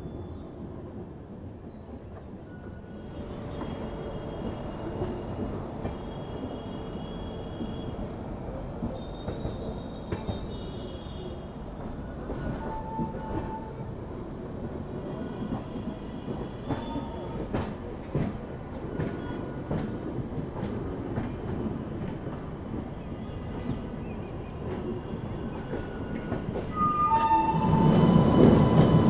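Express train coaches rolling slowly, heard from an open coach door: a steady rumble of wheels on rails, with thin high wheel squeals that come and go as the train rounds curves. About two seconds before the end the noise grows sharply louder.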